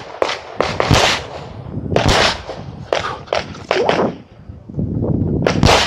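Rapid 9mm pistol shots from a CZ Shadow 2, fired mostly in quick pairs with short pauses between, with a brief lull about four seconds in before a few more loud shots near the end.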